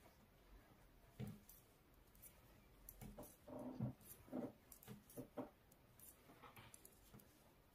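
Faint, scattered clicks and soft rustles of metal knitting needles and yarn being worked by hand, a few in quick succession around the middle.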